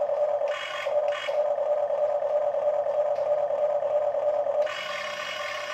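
Huina radio-controlled toy excavator's electric motors whining steadily as the boom and bucket move. Twice in the first second, and again for about a second and a half near the end, the steady whine gives way to a broader, hissier whir.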